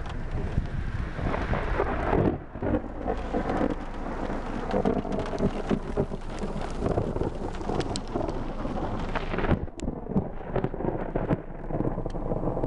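Thunderstorm: heavy rain pattering on a surface, with thunder rumbling low underneath.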